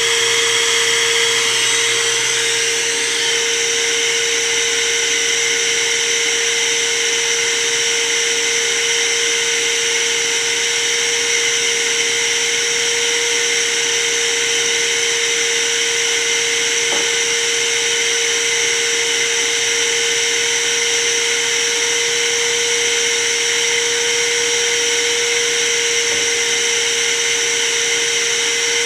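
Electric motor running steadily at a constant pitch, with a high whine over it.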